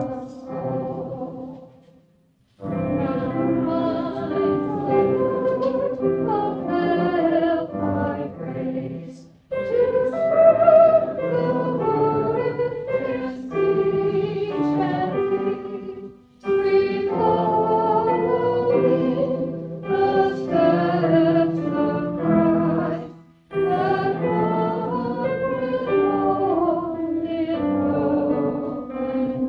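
A group of voices singing a hymn in phrases about seven seconds long, with a brief pause between phrases.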